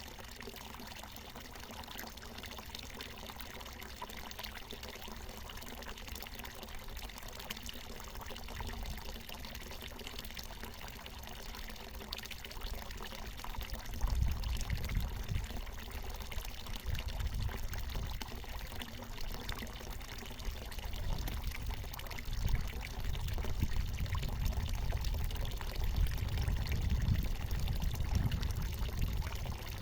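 Water from a natural mountain spring pouring and trickling steadily. About halfway through, an irregular low rumble joins it.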